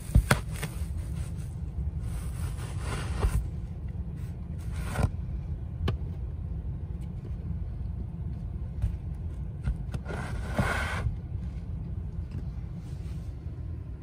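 A screwdriver punching through and scraping in foil-faced fiberglass duct board, a few short crunches and scrapes, the sharpest right at the start and a longer scrape about ten seconds in, over the steady low rumble of the running air handler.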